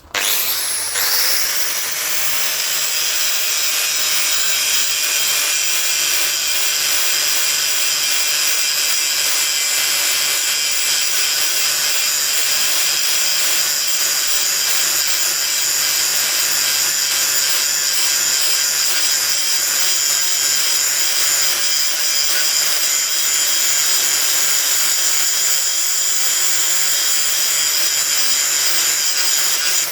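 Angle grinder switched on and spinning up within the first second, then grinding the bevel of a steel splitting axe without a break, its motor whine and the disc's grinding noise holding steady.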